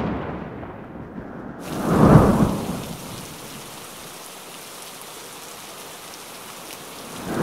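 Staged thunderstorm effect: a deep rumble of thunder swells and fades about two seconds in, then a steady hiss of artificial rain falling among the plants. Another thunder rumble starts near the end.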